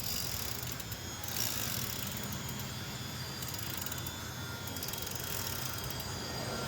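Mountain bike's rear freewheel ratcheting in three short spells of rapid clicks, with a steady low hum underneath.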